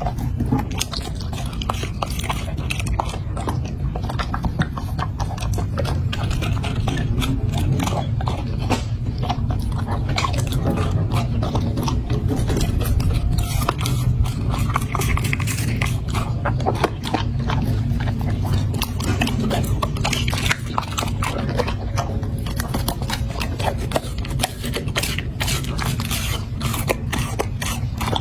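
Corgi chewing and crunching a raw meal of meat and bone, a dense, irregular run of crunches and wet clicks over a steady low hum.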